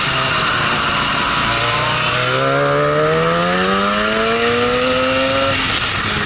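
Hirth two-stroke kart engine accelerating hard out of a corner, its note rising steadily for about four seconds before dropping away suddenly near the end.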